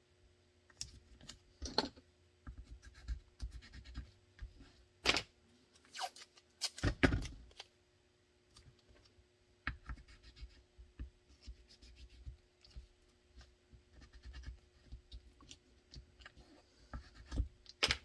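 Hands pressing and rubbing painter's tape onto a pistol mold on a cutting mat: scattered scratches, rubs and light clicks, with a couple of louder knocks about five and seven seconds in. A faint steady hum runs underneath.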